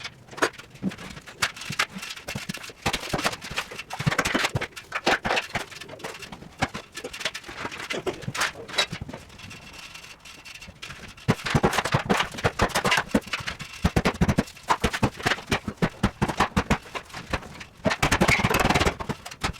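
Demolition work on a prefab walk-in refrigerator: rapid irregular knocks and clatter, with longer stretches of noisy scraping and banging about four seconds in, in the middle and near the end.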